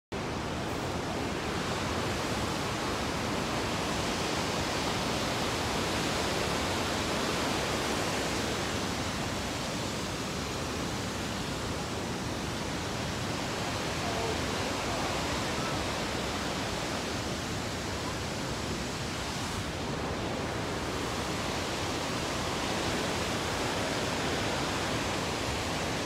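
Steady rushing of water, as of a fast creek in the canyon below.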